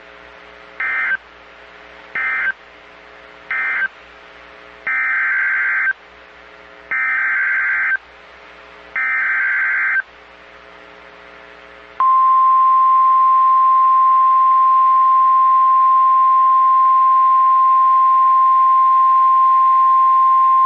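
NOAA Weather Radio Emergency Alert System tones: three short SAME data bursts end the previous warning, then three longer SAME header bursts of warbling digital data, each about a second long, announce the next warning. About 12 seconds in, the steady 1050 Hz weather radio alert tone starts and holds unbroken, with a faint hum underneath throughout.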